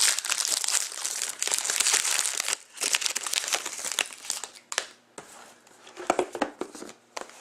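Trading card pack wrapper being torn open and crinkled by hand, dense at first, then thinning to scattered crackles and light rustling of the cards about halfway through.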